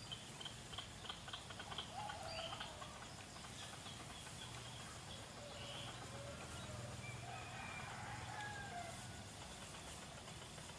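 A faint rooster crowing, one long call about seven seconds in, among bird chirps. A quick run of sharp chipping notes fills the first two seconds.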